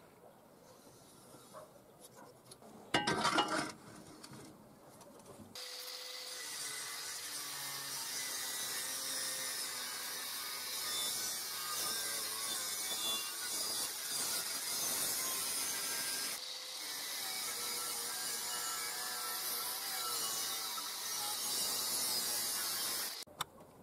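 Angle grinder with a cutting disc cutting through a steel square tube: a steady, loud grinding hiss that starts about six seconds in, drops out briefly about two thirds of the way through, and stops abruptly just before the end. About three seconds in there is a brief loud scrape.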